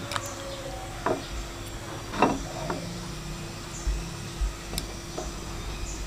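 Light knocks and clatter of cookware being handled, eight or so separate strokes spread over a few seconds, the loudest about two seconds in, over a faint steady hum.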